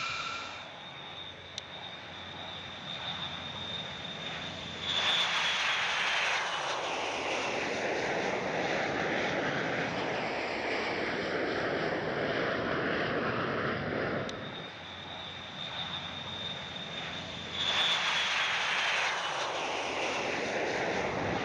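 MQ-25 Stingray's turbofan engine: a steady high whine, then about five seconds in a sudden rise to a loud rush of engine noise with the whine falling in pitch as it goes past. The noise eases about fourteen seconds in, and the same whine-then-rise pattern comes again near the end.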